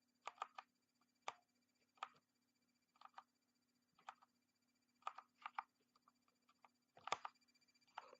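Keys of an Ajazz AK45 mechanical keyboard with Kailh BOX switches being pressed, sharp clicks in small irregular groups about once a second, the loudest group about seven seconds in. A faint steady hum runs underneath.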